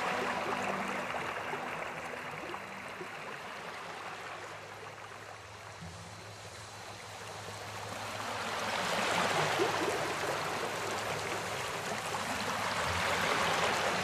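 Shallow stream running over rocks and a small riffle, a steady wash of water. It sinks lower about halfway through, then swells up again.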